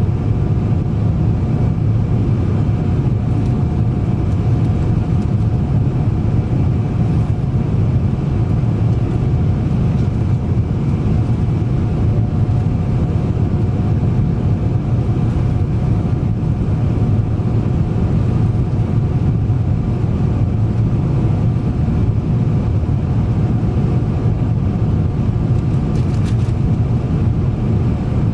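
Boeing 777-300 airliner cabin noise in the climb after takeoff: a steady, loud rumble of engines and airflow with faint steady whining tones over it.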